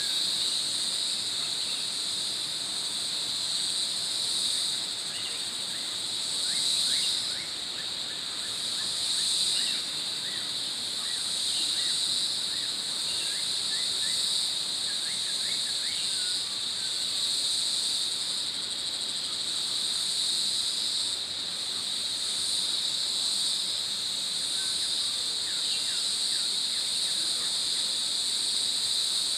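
Forest insect chorus: a steady, high-pitched drone that swells and eases a little every few seconds, with short chirps scattered through it, thickest from about six to sixteen seconds in.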